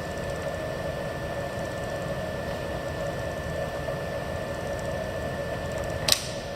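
Bridgeport 1-1/2 hp vertical milling machine running with its spindle turning and quill power feed engaged: a steady mechanical hum with a thin high whine. A single sharp click about six seconds in.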